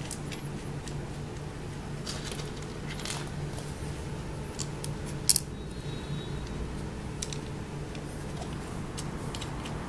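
Small metal clinks and taps as steel washers and locking nuts are fitted onto bolts and hand-tightened, with the loudest click about five seconds in.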